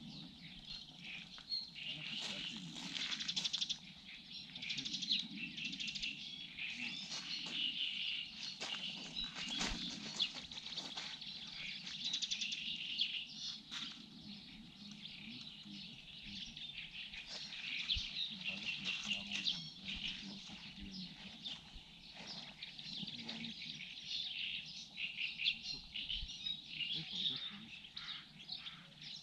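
Songbirds chirping and singing in a continuous chorus, dense and overlapping, with scattered short clicks.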